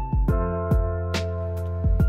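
Background music: a relaxed, chill beat with regular drum hits about every half second under long held melodic notes.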